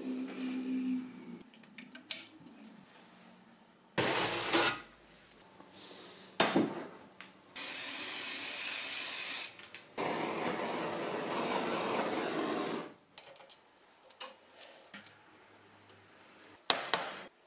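Aerosol spray-paint can hissing in two steady bursts of about two to three seconds each, spraying over a gasket laid on a steel plate to mark its outline. A few knocks and clicks of metal parts being handled come before and after.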